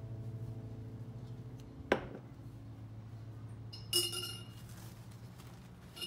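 Tableware handled in a kitchen: a sharp tap about two seconds in, then a clink that rings briefly about four seconds in, over a low steady hum that fades out.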